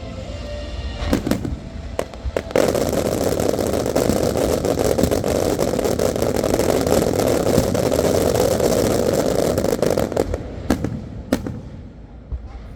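Fireworks going off: two single sharp bangs, then about eight seconds of dense, rapid crackling and banging, and two more sharp bangs near the end.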